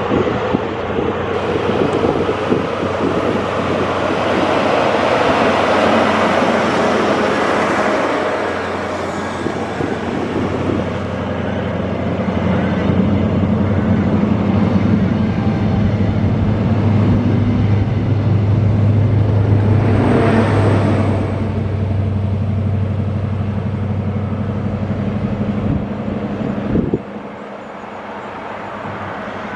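Great Western Railway 'Castle' HST with Class 43 power cars, their MTU diesel engines running with wheel-on-rail noise as the train moves through the station and pulls away. The engine hum grows louder partway through, and the level drops suddenly near the end.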